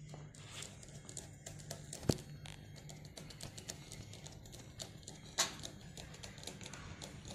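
Small clicks and light metallic knocks from a screwdriver working a steel hose clamp tight around a cloth filter sleeve on a stainless steel tube, with two sharper clicks about two and five seconds in, over a low steady hum.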